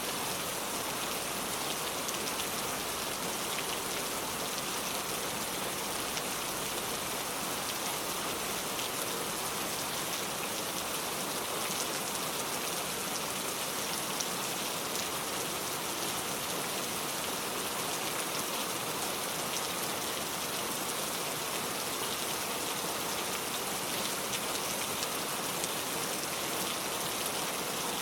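Steady rain falling, an even continuous hiss of drops with fine individual drop ticks through it.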